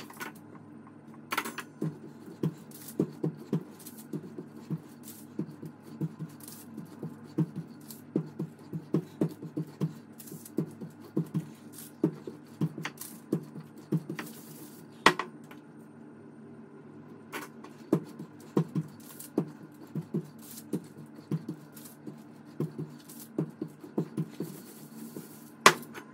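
Rolling pin worked back and forth over pâte brisée tart dough between sheets of baking paper on the counter: a quick, uneven run of soft low thuds with a few sharper knocks.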